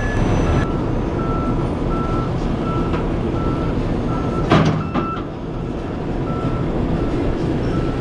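A truck's reversing alarm beeping in a steady series over the rumble of diesel truck engines, as a ready-mix concrete truck backs up to a concrete pump's hopper. A single sharp clank about halfway through.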